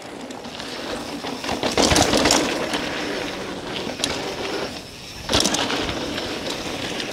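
Mountain bike ridden fast down a dirt trail, heard from a handlebar-mounted camera: tyres rolling over dirt and the bike rattling, with louder jolts about two seconds in and again about five and a half seconds in.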